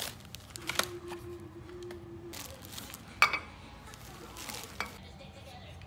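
Small metal baking tins clinking and rattling against one another and the box as a capuchin monkey handles them, with a sharp clink about three seconds in.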